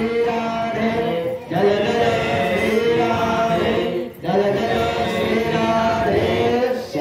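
A man singing a Hindu devotional chant through a microphone and loudspeaker, in long held phrases with brief breaks between them.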